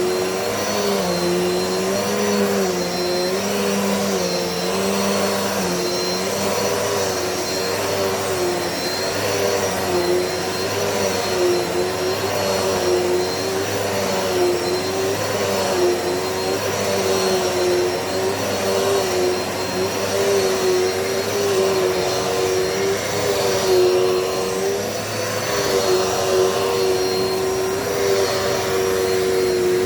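Dirt Devil Multi-Surface vacuum cleaner running steadily as it is pushed over the floor. Its motor whine dips and recovers slightly in pitch every second or two.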